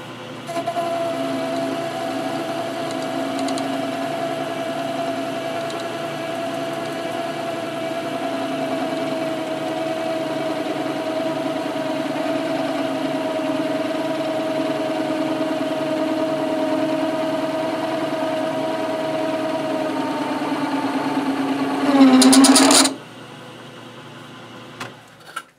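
Metal lathe running steadily with a steady whine while a vertical shear tool bit takes a finishing cut on the copper commutator of a miter saw armature. About 22 seconds in the sound briefly gets louder with a bending pitch, then drops away sharply as the lathe stops.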